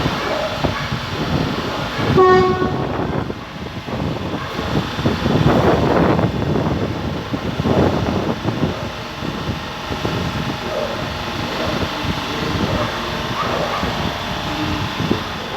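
Metrotren Rancagua commuter train running past with continuous rail rumble and clatter. A single short horn blast sounds about two seconds in.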